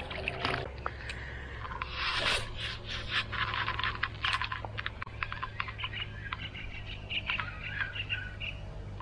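Small spinning reel being cranked, its gears and bail giving off a fast run of light ticking and scraping from about two seconds in.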